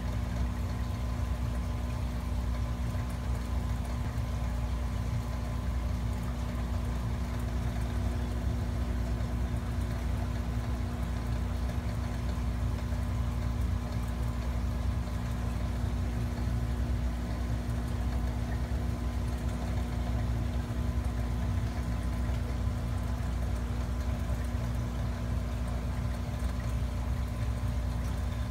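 Steady low mechanical hum of aquarium equipment running, with a couple of steady higher tones held over it.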